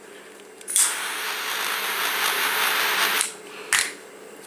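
A butane lighter's flame hissing steadily for about two and a half seconds, heating the frayed end of the starter rope to melt it together. A short click follows near the end.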